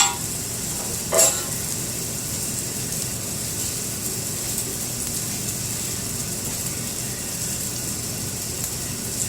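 Fried rice frying in butter and oil on a hot flat-top grill: a steady sizzle. There is one short louder sound about a second in.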